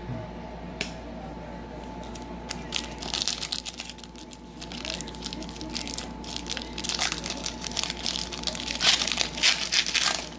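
Foil trading-card pack wrapper crinkling as it is torn open and handled, in bursts from about three seconds in, loudest near the end.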